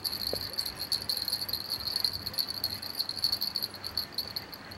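Insect trilling: a steady, high, finely pulsing trill that carries on without a break.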